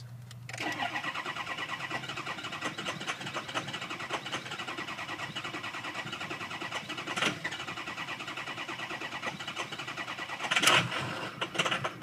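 Ford 6.0 Power Stroke V8 diesel cranking on the starter with a steady, evenly pulsing churn, beginning about half a second in and running for about eleven seconds. It does not start: the FICM main power is down around 30 to 35 V, well below the 45 V needed, so the FICM has failed.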